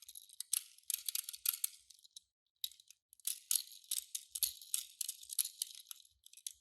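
Toy packaging being opened by hand: crinkly rustling and tearing with small clicks, in two stretches with a short pause between them.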